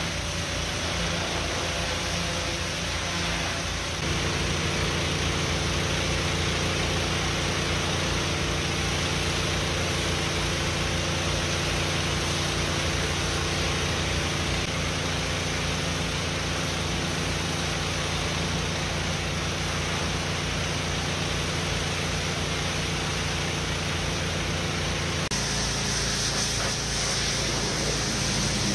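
Pressure washer running steadily: the pump motor's low, rapidly pulsing drone under the hiss of the high-pressure water spray. The drone steps up a little about four seconds in, and the sound shifts near the end.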